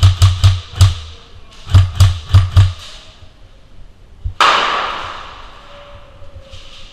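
Airsoft gunfire: two quick strings of about four sharp shots each, with a deep thump on every shot. About four seconds in comes a sudden loud hissing burst that dies away over about two seconds.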